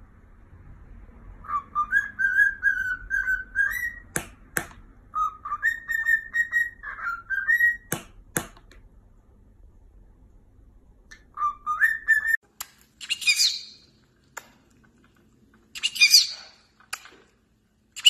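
Lutino cockatiel whistling a tune in three phrases, with a few sharp clicks between them. Near the end come two short, harsh parrot chirps.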